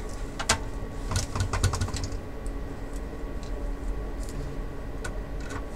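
Hand screwdriver driving screws into a monitor's sheet-steel chassis, giving a sharp metal click, then a quick flurry of ticks about a second in, and a couple more near the end, over a steady background hum.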